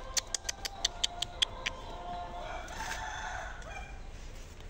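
A rooster crowing about two seconds in, one drawn-out call lasting around a second and a half. Before it comes a quick run of about ten sharp clicks.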